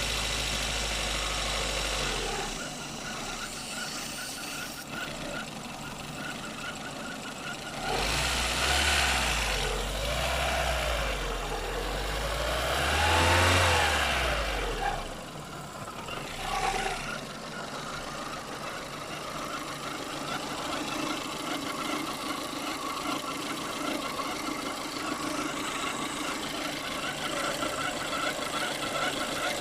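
VAZ-2115 car with its engine running and an unexplained squeak, the fault the owner cannot place. From about eight seconds in the sound swells for several seconds, with pitch rising and falling, then settles back to a steady running sound.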